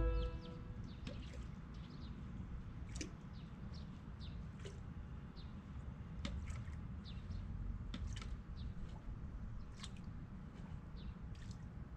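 Faint outdoor ambience: small birds chirping in short, high, scattered calls over a low steady background rumble.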